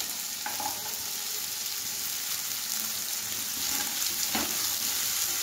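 Diced vegetables (potato, carrot, onion, beetroot) frying in hot mustard oil in a kadai: a steady sizzle, with a spatula stirring through them and one knock against the pan about four seconds in.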